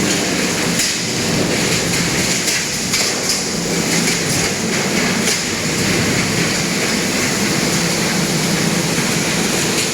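Wood pallet crusher running loud and steady, its rotor grinding wood into chips, with a few sharp cracks as pieces break in the first half.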